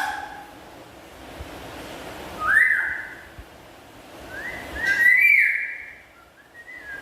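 Black-capped lory giving loud whistled calls, twice: a short one with a sharp rising start, then a longer call of several rising notes.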